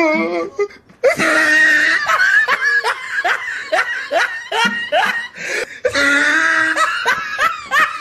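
Laughter: a run of short, repeated ha-ha bursts starting about a second in, with a brief break partway through.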